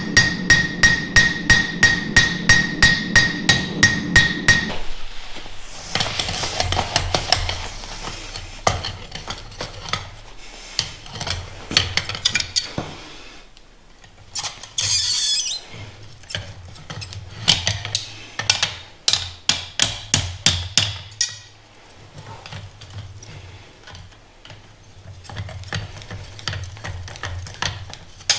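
Hand hammer striking steel on an anvil: a fast, even run of ringing blows, about three a second, stops about five seconds in. Irregular metal clinks and knocks follow, with a brief hiss midway and a second run of blows later on.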